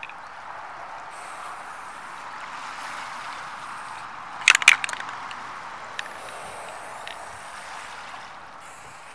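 Aerosol spray paint can hissing in repeated bursts while spraying black paint, with a quick cluster of sharp clicks about halfway through.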